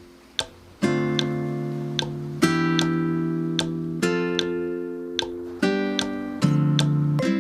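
Background music: strummed acoustic guitar chords, changing about every one to two seconds, with light plucked notes over them.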